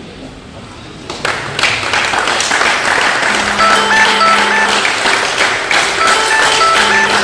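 A group applauding, the clapping starting suddenly about a second in and carrying on loudly. A simple melody of stepped, chime-like notes comes in under the clapping about three seconds in.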